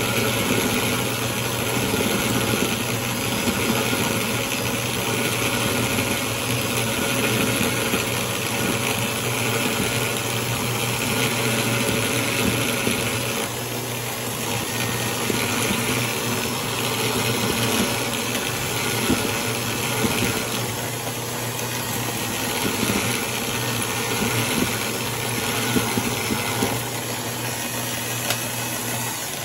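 Electric drill running steadily, spinning a steel screw in its chuck while a hacksaw blade is held against the shank to cut it, a steady motor hum under a scraping hiss of blade on metal. The sound tapers off near the end.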